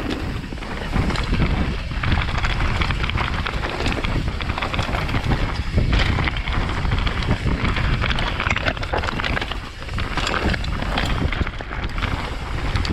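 NS Define enduro mountain bike descending a rough trail: tyres crunching over dirt and roots and the chain and frame rattling with frequent sharp knocks, under steady wind rumble on a helmet-mounted camera's microphone.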